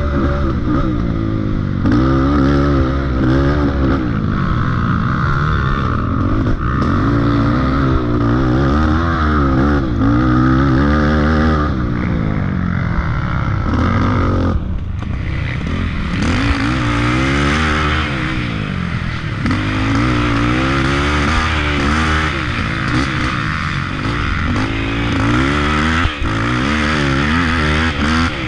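Racing ATV's engine heard from on board, revving up and falling back again and again as the quad is throttled and shifted along a rough trail, with a brief throttle lift about halfway through.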